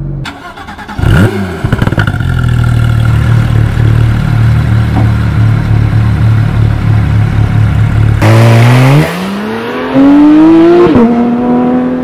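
2018 Porsche 911 GT3 (991.2) naturally aspirated 4.0-litre flat-six on its stock exhaust. It gives a brief rev flare about a second in, then idles steadily. About eight seconds in it revs up as the car pulls away, the note climbing, and the pitch drops at an upshift shortly before the end.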